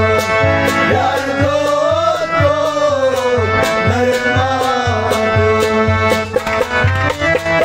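Kashmiri folk wedding song: a harmonium playing over a steady drum beat about twice a second, with a wavering sung melody line on top.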